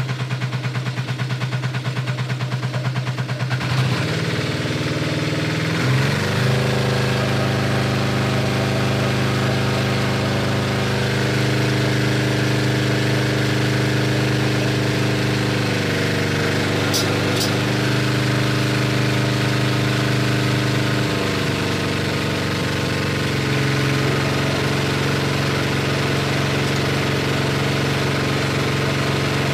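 Motor-driven meat grinding machine running with a steady hum, its pitch shifting a few times. Two short sharp clicks come about 17 seconds in.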